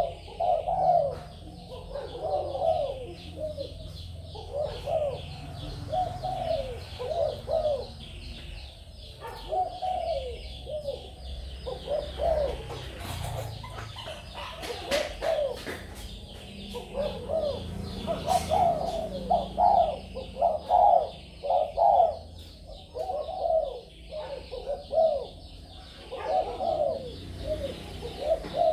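Spotted doves cooing, repeated phrases of several low coos with short pauses between them. Faint high chirping runs underneath.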